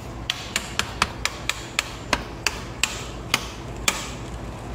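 Steel bench scraper chopping soft white food into cubes, striking the hard board beneath with about a dozen sharp knocks. The knocks come about four a second at first and slow near the end.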